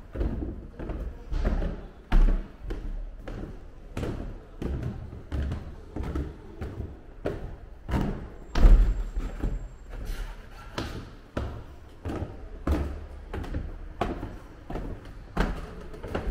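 Footsteps going down a wooden staircase, a thud on each step about twice a second.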